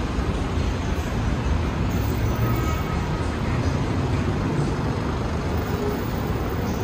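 Steady city traffic noise with a low rumble of vehicles.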